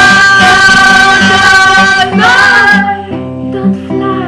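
A woman singing a held note over acoustic guitar. The voice ends about three seconds in and the guitar carries on more quietly.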